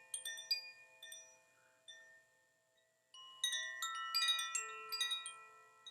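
Zaphir 'Blue Moon' chime, tuned to D, F, A, B, C and E plus an A sharp, ringing with several clear overlapping notes. A first cluster of strikes fades almost out by about two and a half seconds in, and a fresh cluster about three seconds in rings on and slowly dies away.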